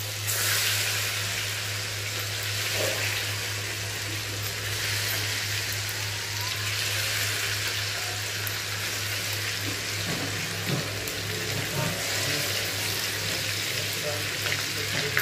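Hot oil sizzling steadily as marinated fish pieces deep-fry in a kadai, a continuous even hiss.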